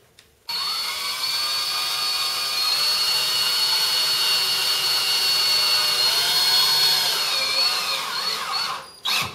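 Cordless DeWalt drill running steadily as it drives screws through a metal strip into wood. Its whine rises as it starts, then sags and wavers in pitch under load before stopping near the end.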